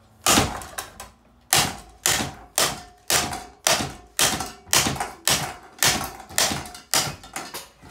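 Running Lanson ceiling fan knocking against something with an even beat of sharp knocks, about two a second, and a faint steady hum between them.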